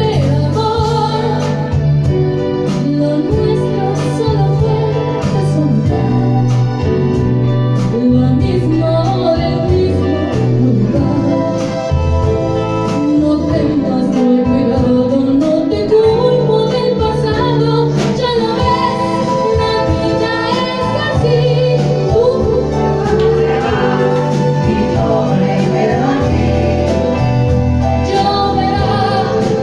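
Live band music with singing: a ballad played in concert, with a changing bass line and regular percussion under the vocals.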